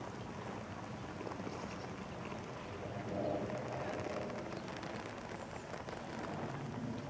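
Light rain pattering steadily on the ground and foliage, a dense even spatter of small drops.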